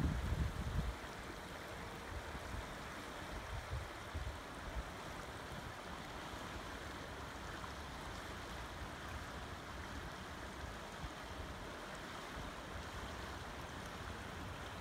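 Shallow river flowing and rippling steadily over a stony bed. There is a brief low rumble in the first second and a weaker one a few seconds later.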